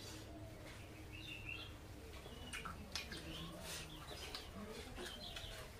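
Small birds chirping repeatedly in short high calls, over a low steady hum, with a few sharp mouth clicks from chewing.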